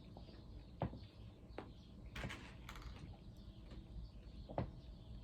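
Quiet eating sounds: a person chewing, with a handful of faint, short mouth clicks and smacks spaced about a second apart.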